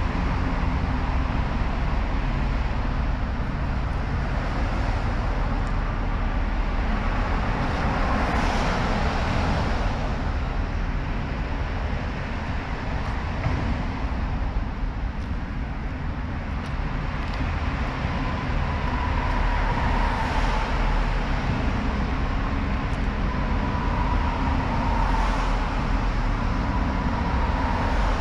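Honda CBR sportbike engine running at a steady, even pitch, heard from a camera mounted on the bike, with a rushing noise that swells a few times.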